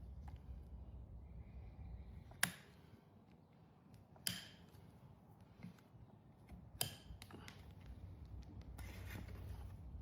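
Hoof nippers cutting through a horse's overgrown hoof wall: three sharp snaps about two seconds apart, the first the loudest, with lighter ticks between and a short scrape near the end.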